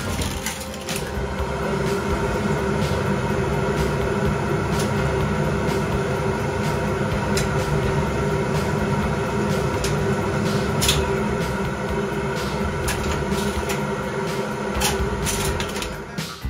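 1962 Schindler lift machinery running: a steady mechanical hum with several held tones, broken by scattered sharp clicks.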